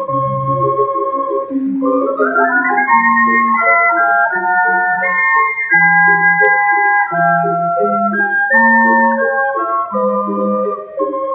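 An ensemble of ocarinas of several sizes playing a piece in parts: clear, pure held notes over a low bass line, with a quick rising run about two seconds in.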